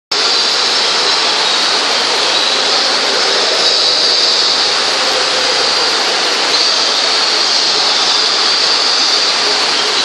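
Loud, steady rushing hiss of falling water from an indoor waterfall.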